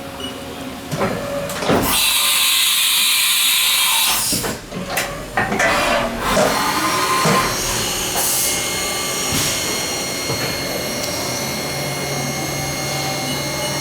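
Haas VF-3 CNC vertical machining center running its spindle, with a steady high-pitched whine at about 4,600 RPM. About two seconds in there is a loud hiss lasting two seconds, followed by a few knocks and clatters, and a low hum joins near the end.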